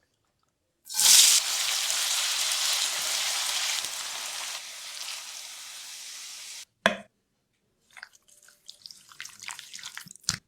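Food sizzling in hot oil in a pan: a sudden hiss about a second in that slowly dies down over about six seconds, then a single click and a few faint ticks near the end.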